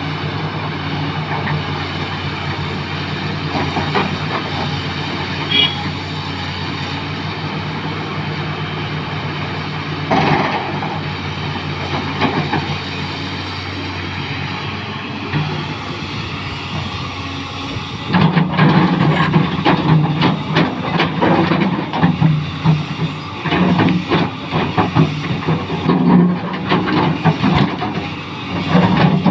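XCMG 380 excavator's diesel engine running steadily. About two-thirds of the way in it gets louder and uneven, with a dense clatter of knocks and rattles as the machine works.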